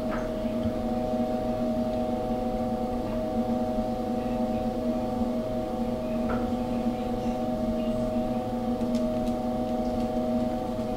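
GQF 1502 cabinet incubator running: a steady electric hum from its circulating fan motor, with several constant tones and no change throughout.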